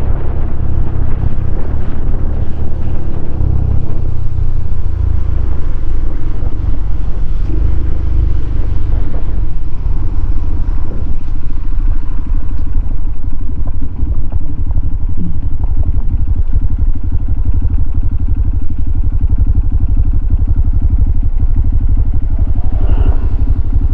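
Honda CRF150L single-cylinder four-stroke engine running through a Norifumi Noctus T5 aftermarket exhaust. It runs under a rush of wind at first, then settles to a steady, even idle after about ten seconds.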